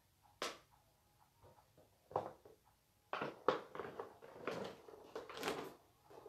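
A series of irregular knocks and clatters in a small room, a single one about half a second in, then coming thicker over the second half.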